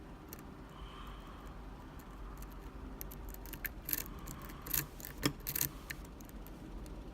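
Sharp metallic clicks and taps of lockpicking tools working the pins of a Medeco lock, a scattered cluster of them in the middle, the loudest about five seconds in.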